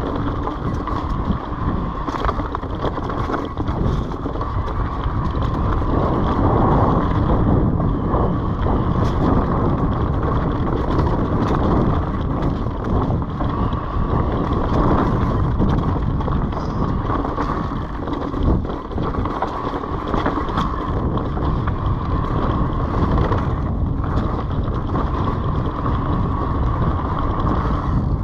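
Orbea Wild FS electric mountain bike rolling along a dirt trail covered in dry leaves: steady tyre noise and wind buffeting the microphone, with scattered light knocks from the bike over bumps.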